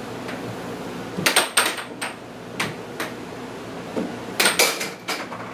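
Air hockey puck being struck by the players' mallets and rebounding off the table's rails: a run of sharp plastic clacks in two quick flurries, about a second in and near the end, with single knocks between.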